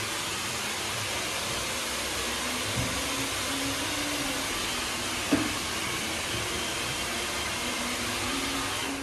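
Hair dryer running steadily: an even rushing hiss over a low motor hum, with a couple of light knocks.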